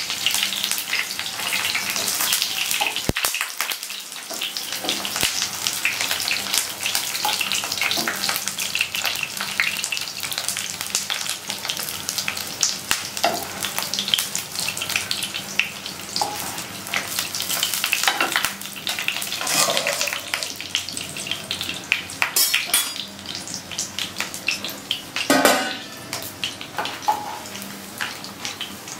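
Battered jute-leaf fritters sizzling and crackling in hot oil in a non-stick wok. A spatula turning them in the pan adds scrapes and scattered taps, with a sharper knock a little before the end.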